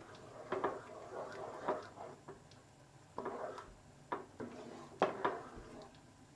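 A wooden-handled spoon stirring thick, nearly finished rice pudding (kheer) in a pan, with soft scrapes and light knocks against the pan about once a second.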